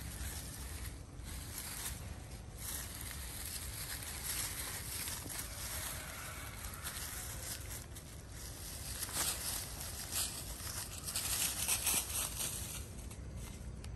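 Dry fallen leaves rustling and crackling under the paws and bodies of dogs and an otter moving about on them, loudest and busiest about two-thirds of the way in, over a steady low rumble.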